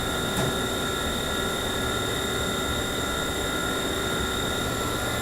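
Haas VF-1 vertical machining center running its warm-up program, its table feeding back and forth. It makes a steady machine hum with several steady whining tones, one of which cuts out near the end.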